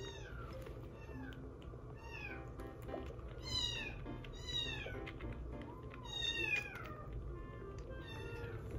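A young kitten mewing: about six short, high-pitched cries that fall in pitch, spaced a second or two apart.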